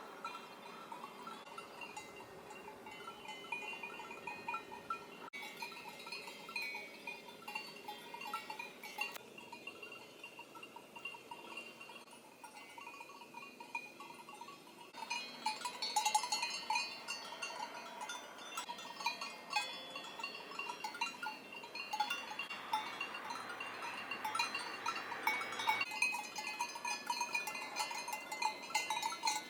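Cowbells on grazing cattle clanking irregularly, several bells at different pitches ringing on and off. They get busier and louder about halfway through.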